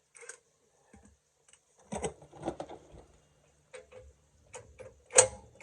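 Scattered clicks and short metallic knocks from a 13 mm socket and cordless impact driver being handled and fitted onto a transmission-mount bolt. A louder knock comes near the end.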